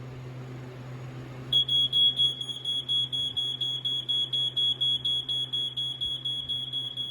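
BRK 86RAC smoke alarm sounding on test. Its piezo horn comes in about a second and a half in with a high, shrill tone, pulsing rapidly at about four beeps a second in one unbroken run, the Code 1 continuous pattern rather than a three-beep temporal pattern.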